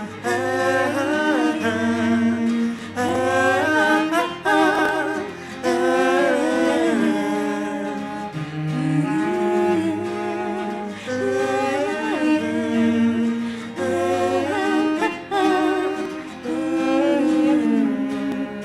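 Live folk song interlude: a wordless hummed or vocalised melody, wavering and gliding, over acoustic accompaniment with sustained low bass notes.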